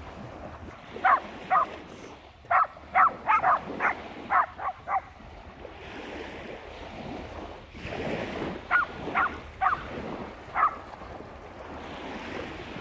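Dog barking in two runs of short, sharp barks, about ten in quick succession in the first five seconds and four more a few seconds later, over a steady wash of small waves and wind.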